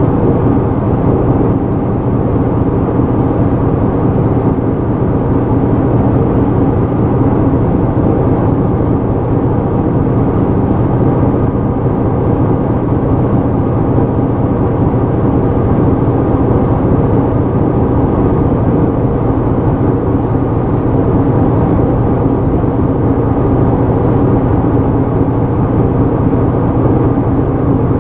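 Diesel shunting locomotive's engine idling steadily close by, a constant, even running note with no change in speed.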